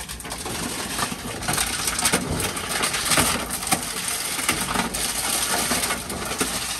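Envipco ULTRA-48 reverse vending machine crushing and shredding plastic bottles: a steady crackling clatter of plastic with many small cracks and clicks.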